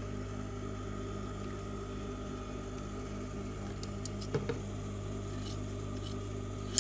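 Steady low electrical hum with a few light clicks of handling about two-thirds of the way through.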